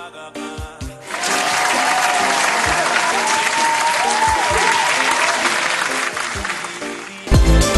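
Edited-in music with a burst of crowd applause laid over it from about a second in, along with a few gliding whistle-like tones. Near the end it cuts to an electronic dance track with a heavy beat.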